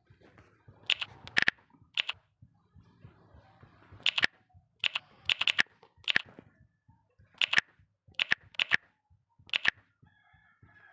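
Irregular sharp clicks or taps, about a dozen, some coming in quick pairs or triplets.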